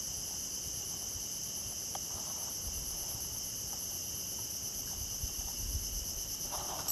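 Steady insect chorus: several shrill tones held at once, each with a slight pulsing, over a faint low rumble.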